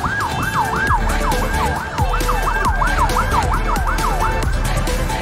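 A yelp-style siren wail rising and falling fast, about three times a second, stopping about four and a half seconds in, over background music with a steady beat.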